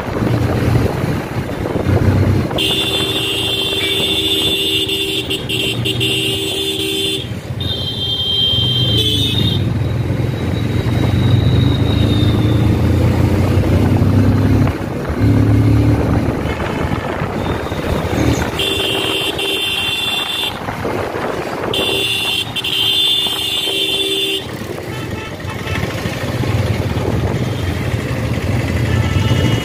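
Motorcycle engine running while riding, heard from on the bike, with a vehicle horn sounding in several long held blasts of a few seconds each.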